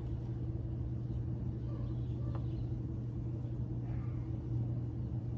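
Steady low mechanical hum that stays even throughout, with faint small sounds over it.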